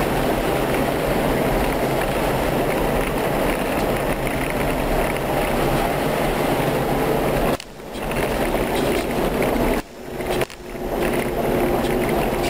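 A vehicle driving on a rough gravel mountain road: steady engine and road noise mixed with a dense rush of wind on the microphone. The sound drops out abruptly and briefly three times in the second half.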